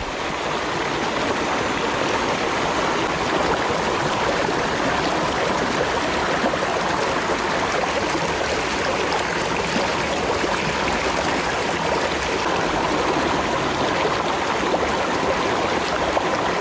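Shallow rocky stream rushing over boulders and small rapids, a steady, even rush of water.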